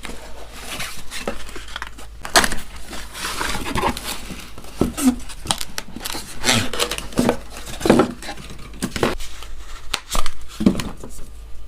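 Crinkling and tearing of gift-box packaging, with irregular light knocks and clinks as the items in it are handled.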